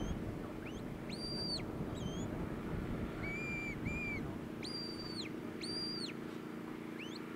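A sheepdog handler's whistle commands to a working dog: a series of high, flat-held whistle notes, each rising sharply, holding and then dropping off. Several long notes are broken by a pair of short, lower notes in the middle, over a steady low background noise.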